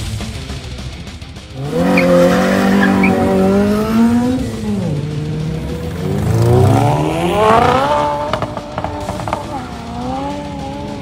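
Modified hatchback engines revving hard as cars accelerate away one after another. An engine note cuts in about a second and a half in, climbs, drops as it changes gear, then climbs again. A few sharp cracks follow, and a second car's engine comes in near the end.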